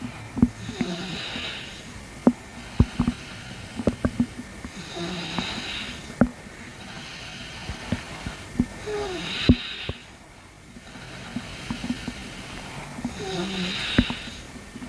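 A person's stomach gurgling, recorded close up: quick pops and clicks and a few short squeaky glides, over slow breathing that swells about every four seconds.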